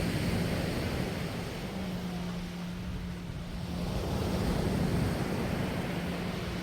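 Sea surf washing onto the beach, swelling twice, over a steady low hum.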